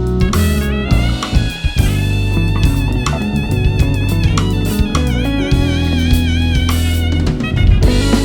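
A band playing with a drum kit and cymbals: a lead melody with wavering, bending notes over a steady bass line and drum hits.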